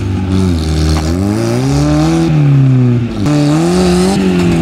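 Off-road 4x4 engine revving hard under load during a tow on a dirt slope. The pitch climbs, drops back about three seconds in, then climbs again.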